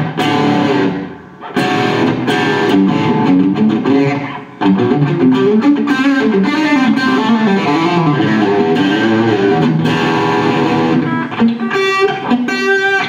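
JCraft S-3 Strat-style electric guitar played through an amp: melodic lead runs and riffs, with short breaks about one and four seconds in and a burst of quick repeated notes near the end.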